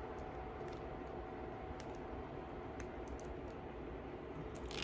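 Faint, scattered light clicks of beads knocking together on a strung strand as it is handled, over a low steady room hum. A sharper cluster of clicks comes right at the end.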